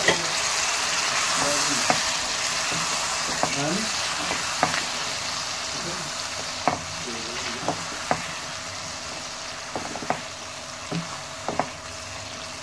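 Split urad (mash) daal sizzling in oily masala in a pan, the sizzle slowly dying down, while a spatula stirs it, clicking and scraping against the pan every second or so.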